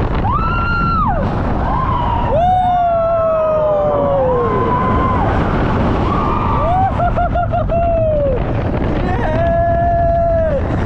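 Roller coaster riders screaming and whooping over a steady rush of wind and ride rumble: about four long, high yells that slide in pitch, one wavering about two-thirds of the way through.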